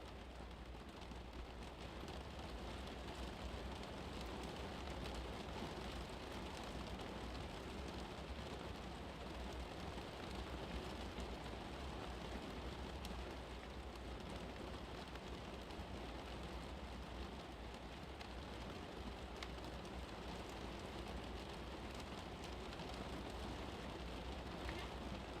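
Steady soft hiss with a fine crackle like falling rain, over a constant low hum.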